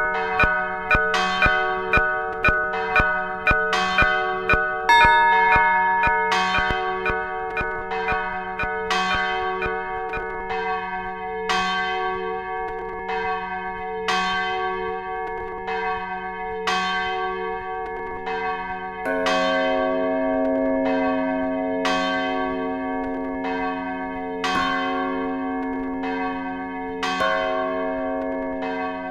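Several church bells pealing together, each strike ringing on under the next. The strikes come about two a second at first, then slow after a few seconds, and a deeper bell joins a little before two-thirds of the way through.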